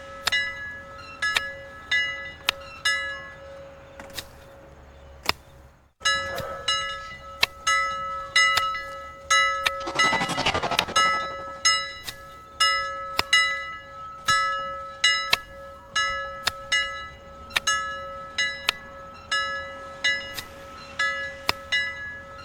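Japanese-style railroad crossing warning bell ringing over and over, a little under two strikes a second, over a steady tone. It breaks off briefly about six seconds in, then starts again. A rushing sound swells and fades about ten seconds in.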